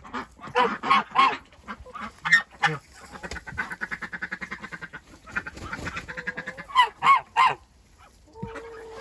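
Geese honking loudly in short groups, with ducks quacking among them and a rapid run of softer calls in the middle.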